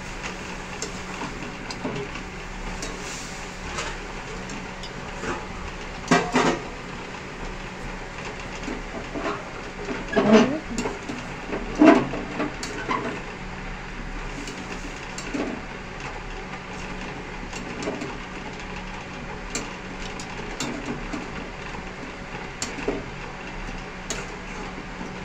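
A metal spatula stirring chicken and potato curry in an aluminium karai, scraping and knocking against the pan at irregular moments, the loudest knocks about six, ten and twelve seconds in. A faint steady low hum runs underneath.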